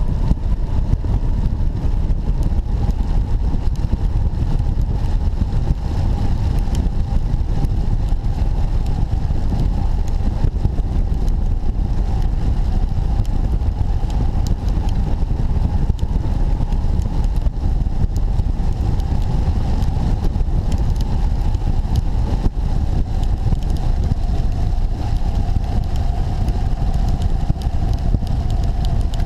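Steady rush of airflow over a camera mounted on a hang glider's wing in flight, strongest in the low end, with a steady droning tone that sinks a little in pitch near the end. Faint scattered ticks of rain strike the glider and camera.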